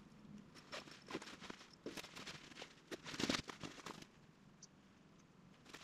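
Faint rustling and light scuffing of a synthetic hybrid blanket being handled and arranged on a hammock, with a louder rustle about three seconds in.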